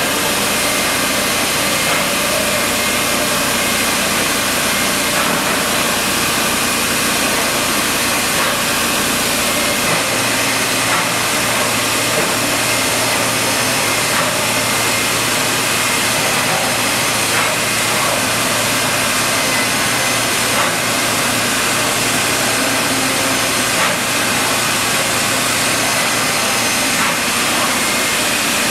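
Weeke Optimat BP 100 CNC router running, a steady loud hiss and hum with faint ticks; a low hum comes in about ten seconds in.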